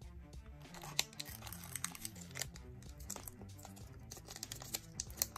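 Foil booster-pack wrappers crinkling as a pack is pulled from a full box and handled, a scatter of sharp crackles, with quiet background music underneath.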